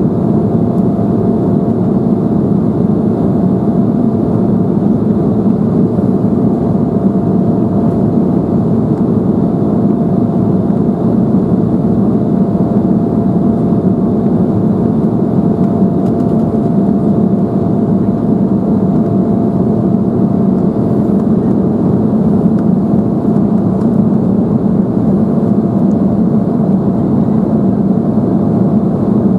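Steady cabin noise inside an Embraer 175 jet airliner in flight shortly after takeoff: a loud, even rush of engine and airflow noise with a faint steady whine held at one pitch.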